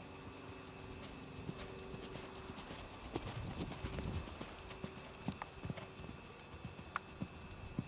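Hoofbeats of a pony cantering on the sand footing of a riding arena, a run of muffled thuds that grows loudest about halfway through as the pony passes close.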